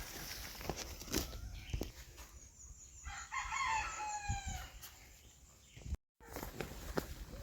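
A rooster crowing once, a single call of about two and a half seconds that falls in pitch at its end, starting about two seconds in, over scattered light knocks.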